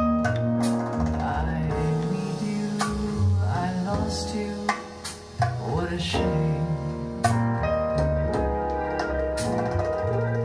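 A recorded pop-rock song's instrumental passage played back over hi-fi loudspeakers through a tube preamplifier, with sustained keyboard chords over drums and regular sharp drum and cymbal hits.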